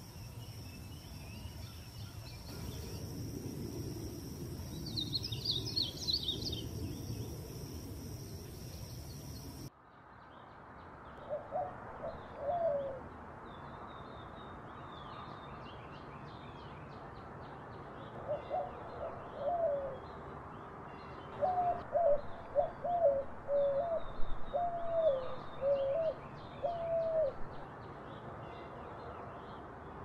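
A painted bunting sings one short, quick, high warbled phrase over a steady high insect trill. Then a white-winged dove coos in short series of low, hooked notes, ending in a longer rhythmic run of coos, with small birds chirping faintly behind.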